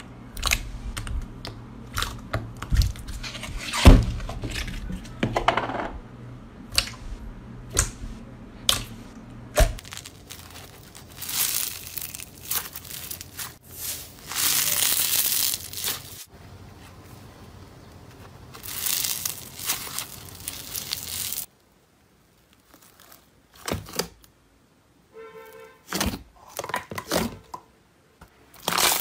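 Hands squishing and poking slime: sharp wet pops and clicks at first, then long crackling squeezes of a stiff white foam slime block, then more popping after a short pause.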